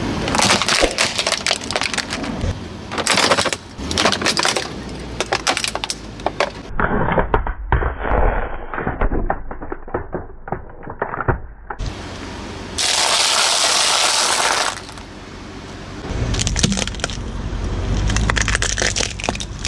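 Plastic toys cracking and breaking under a car tyre: runs of sharp cracks and crunches, in several separate bursts. About two-thirds of the way through, a steady hiss lasts about two seconds.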